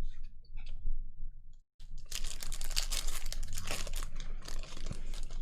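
A trading-card pack's wrapper crinkling and tearing open: faint handling ticks at first, then from about two seconds in a dense, continuous run of crackles.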